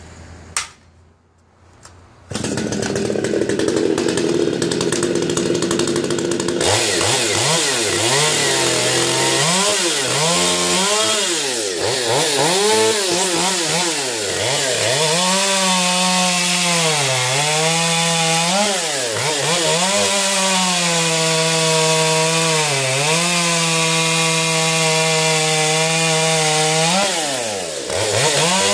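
Stihl MS 250 two-stroke chainsaw starts up about two seconds in and runs briefly at a lower speed. It is then held at high revs while cutting Douglas fir, the engine note sagging and recovering again and again as the chain bites under load.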